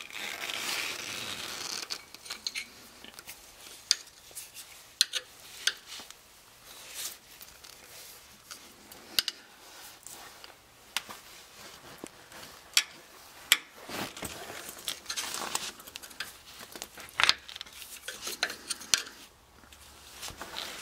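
Screwdrivers prying a worn, cracked rubber bump stop out of its metal holder on a 2002 Chevrolet Silverado's front suspension: irregular sharp metal clicks and clinks of the blades against the bracket, with scraping between them, steadiest in the first two seconds.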